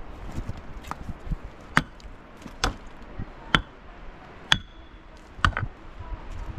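Steady blows of a tool striking, about one a second, several of them ending in a short high metallic ring.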